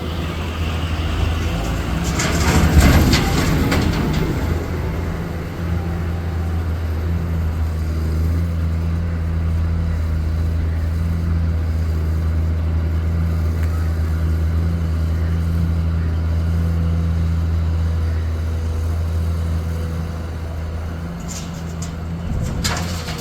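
Heavy diesel engine of an excavator running steadily with a deep hum. About two seconds in, a loud rattling rush lasts about two seconds, and a few sharp clanks come near the end.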